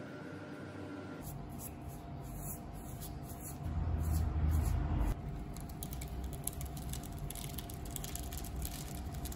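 Paintbrush scrubbing paint onto a rough textured wall over paper masking tape, with a louder stretch of brushing near the middle, then the crackle of the tape being peeled off the wall near the end.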